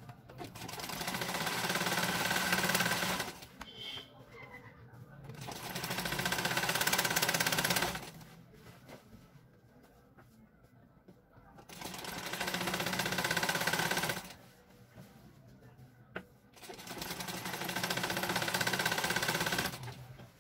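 Black domestic sewing machine stitching in four short runs, each a few seconds long and getting louder as it speeds up, with pauses between. It is sewing a double-folded hem along a bed sheet's edge.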